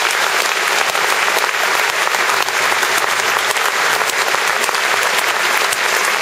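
Audience applauding steadily, a dense clapping of many hands at a ceremony hall.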